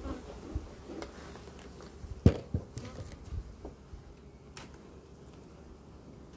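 Scattered clicks and knocks of a beekeeper's smoker and hive tool handled over the wooden frames of an open beehive, the loudest a single sharp knock about two seconds in. Honeybees buzz faintly underneath.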